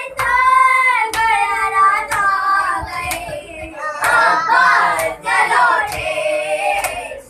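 Girls' voices singing a noha, a Shia mourning lament, with a sharp hand slap about once a second as they beat their chests (matam) in time.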